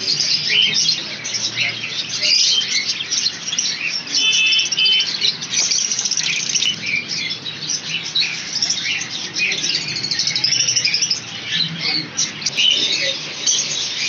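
Many caged small parrots, budgerigars and lovebirds among them, chirping and squawking together in a dense, unbroken high chatter.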